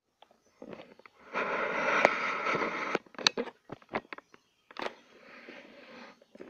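Handling noise on a phone's microphone as the phone is moved and set up: a loud stretch of rubbing that starts and stops abruptly and lasts about two seconds, then several sharp knocks and taps, then a second, quieter stretch of rubbing.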